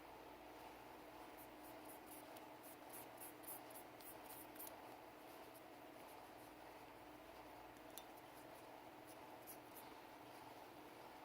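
Faint scratching and light clicks from cleaning a Sig Sauer P320 pistol. A quick run of scratches from about one to nearly five seconds in, then a single light click about eight seconds in and a few more ticks shortly after, over a low steady room hum.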